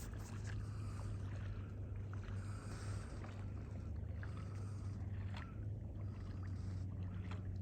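Water lapping against a kayak hull while it drifts, with a few light knocks and ticks, over a steady low hum.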